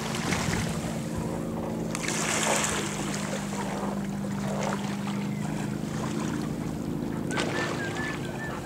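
Steady low drone of a motorboat engine running on the lake, with a brief rush of noise about two seconds in.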